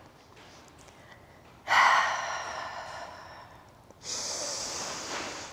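A woman's deep breathing: two long breaths, the first starting about two seconds in and fading away, the second starting about four seconds in.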